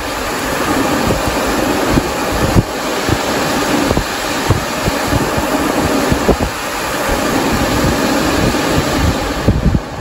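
Squirrel-cage HVAC blower running as a shop fan, its outlet about two-thirds blocked by a board to cut the motor's current draw: a steady rush of air over a low hum, with uneven low buffeting.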